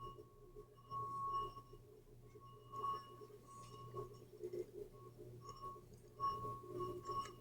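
Wine glass partly filled with water singing as a wet fingertip is rubbed around its rim. It gives one high, steady ringing tone that swells, fades and comes back several times as the finger circles.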